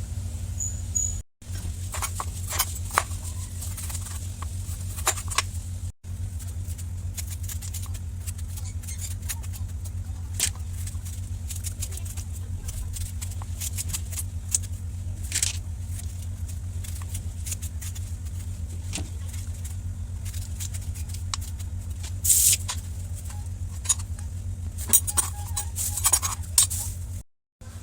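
A kitchen knife slicing bitter melon (ampalaya) on a cutting board, irregular light taps and knocks of the blade, over a steady low hum.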